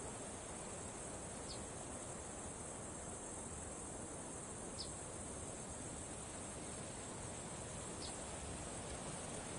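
Steady high-pitched insect chorus from the bush, with three short high chirps about three seconds apart.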